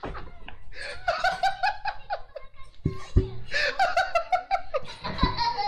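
A man laughing hard in rapid 'ha-ha-ha' bursts, two long fits of it, with a few dull thumps in between.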